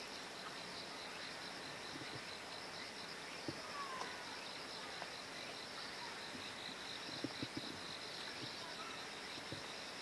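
Steady high-pitched chorus of insects, a fast pulsing buzz. A few faint knocks come in about three and a half seconds in and again around seven to eight seconds.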